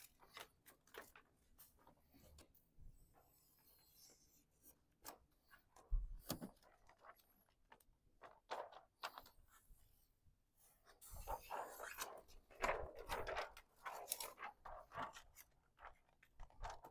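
Dark window-tint film being handled against a pickup truck's rear glass: intermittent crinkling and crackling of the plastic sheet, with a single thump about six seconds in and a denser spell of crackling in the second half.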